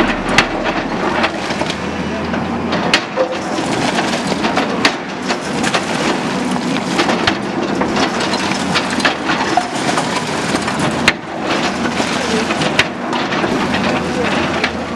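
Tata Hitachi excavator bucket breaking up a concrete and masonry roof: irregular cracks and crunching of rubble as it tears down and falls.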